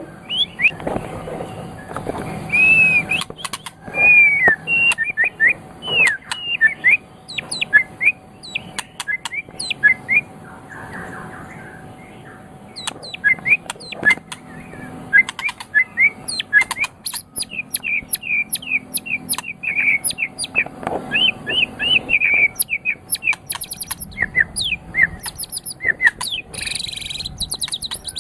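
White-rumped shama (murai batu) singing a long, varied song of quick whistles, chirps and sweeping notes, with sharp clicks mixed in and a dense flurry of notes near the end.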